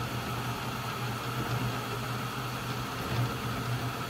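Flashforge Adventurer 5M 3D printer running near the end of a print: a steady hum of its motors and fans over an even hiss.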